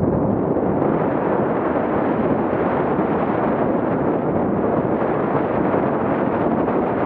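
Steady, loud wind buffeting on an action camera's microphone, mixed with the rolling noise of a mountain bike's tyres on a dirt trail during a fast downhill run.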